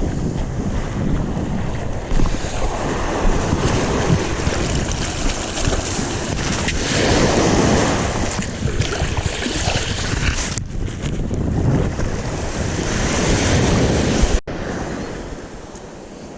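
Wind buffeting the microphone, with waves and water washing beneath it. The sound cuts off abruptly about fourteen seconds in and comes back quieter.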